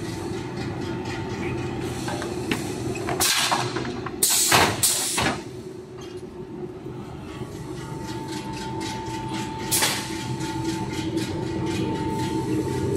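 Egg tray molding machine running with a steady mechanical hum and a faint steady whine. It is broken by loud short hissing bursts, several about three to five seconds in and one more near ten seconds.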